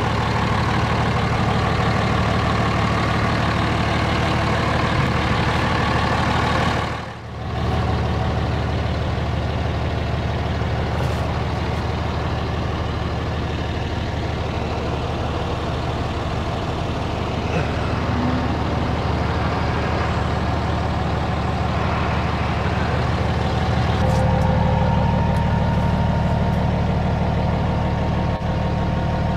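Cummins turbo-diesel in a Dodge Ram Mega Cab idling steadily. The sound dips briefly about seven seconds in.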